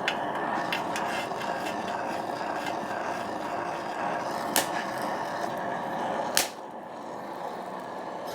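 Steady hiss of a gas heating torch with three sharp metallic clinks, a bit over four and about six and a half seconds in; after the last clink the hiss drops lower.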